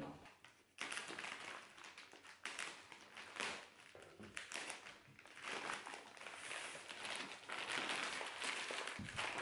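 Heavy kraft paper packaging being torn and crumpled off a rolled rug, a dense run of crackling and rustling that starts about a second in.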